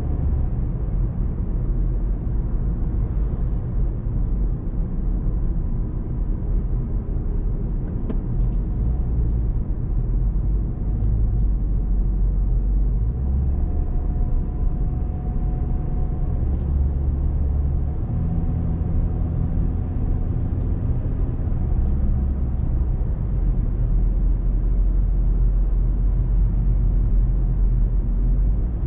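Car driving along a road: a steady low rumble of engine and road noise. The engine's note steps up and down a few times.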